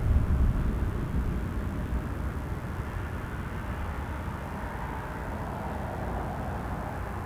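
An Airbus A330's Rolls-Royce Trent 700 jet engines rumble as the airliner slows on its landing rollout. The low rumble fades away steadily as the aircraft decelerates down the runway.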